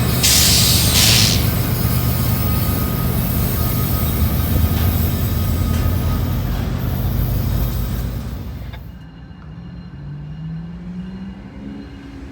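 A train passing close, with diesel locomotive engine drone and rail noise and a short burst of hiss about a second in. About three quarters of the way through, it cuts abruptly to a quieter scene where an engine's pitch rises slowly.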